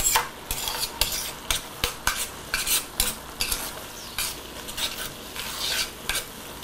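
Metal tongs stirring creamed spinach in a stainless steel skillet, clicking and scraping irregularly against the pan, over the steady sizzle of the spinach and cream cooking.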